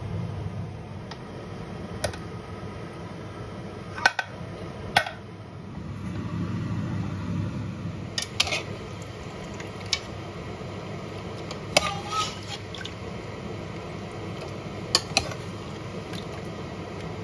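A spoon clinking and knocking against an aluminium pressure cooker pot as stew is stirred, with a sharp clink every second or few, over a steady low hum.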